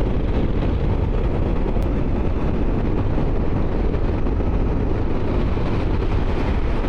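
Wind rushing over the rider's microphone, mixed with a motorcycle's engine and road noise, while riding at a steady speed.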